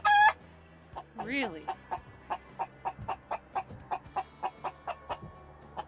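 Hen clucking steadily, about four short clucks a second, with a loud high squawk right at the start: a hen complaining to be let into the coop to lay an egg.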